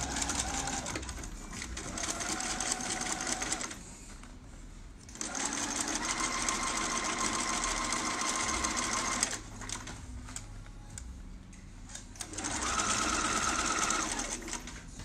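Bernina activa 130 sewing machine stitching a seam through lined fabric in three runs of a few seconds each, stopping in between; its motor whine is pitched higher in the short last run.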